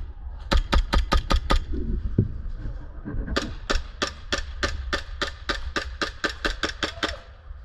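Airsoft guns firing rapid shots: a quick string of about eight sharp pops, then, about three seconds in, a longer even string of about twenty at roughly five or six a second.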